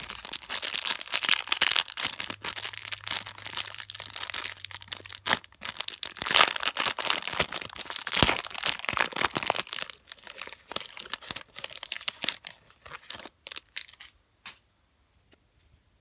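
Thin clear plastic wrapper crinkling and tearing as it is peeled open by hand. The crackling is dense at first, thins to scattered crackles after about ten seconds and stops a second or so before the end.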